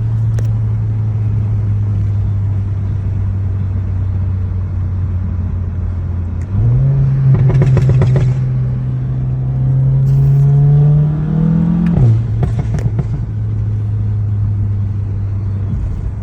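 2015 Volkswagen GTI's turbocharged 2.0-litre four-cylinder, APR Stage 2 tuned, idling, then revved about six seconds in and held with the revs creeping up for about five seconds before dropping back to idle. There is some crackle from the exhaust around the rev and just after it falls.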